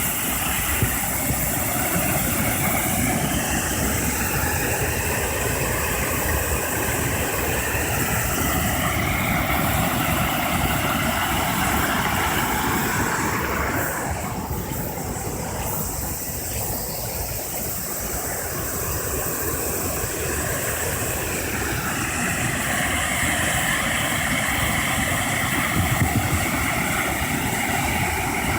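Rain-swollen river rushing, a steady loud roar of fast, high water after typhoon rain.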